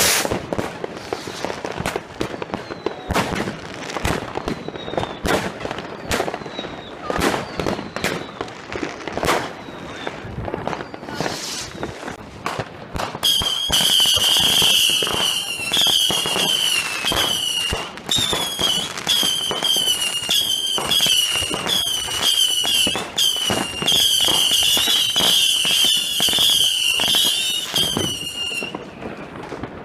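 Fireworks going off: a rapid run of sharp bangs and crackling reports, with a few faint short whistles. About thirteen seconds in, a loud warbling whistle starts over the bangs, goes on for about fifteen seconds, and stops suddenly.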